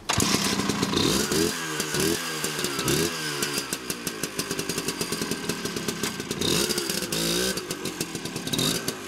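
1980 Vespa ET3 Primavera's 125cc two-stroke single running. The throttle is blipped several times in quick succession about one and a half to three seconds in, and again near the end, with steadier running between.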